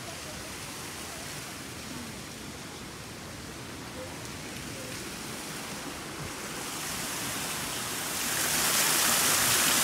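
Water pouring down a fountain's stone cascade into a pond: a steady rushing hiss that grows much louder about seven to eight seconds in as it comes close.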